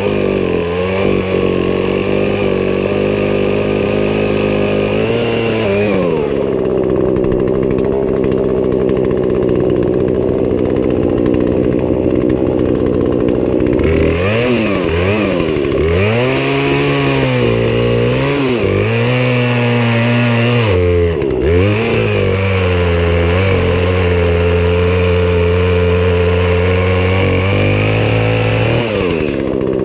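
Poulan Pro two-stroke chainsaw running hard at high revs, dropping to a lower, steadier pitch for several seconds, then revved up and down a few times before running high again.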